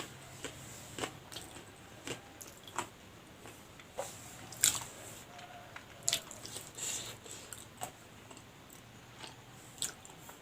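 Chewing and crunching of a fried lumpia with egg and sausage filling, in irregular crisp crackles. The wrapper is fried over-crisp and hard.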